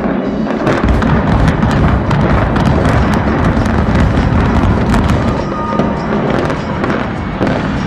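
Explosive demolition charges firing in a rapid crackling series, over a deep rumble as a concrete high-rise tower comes down.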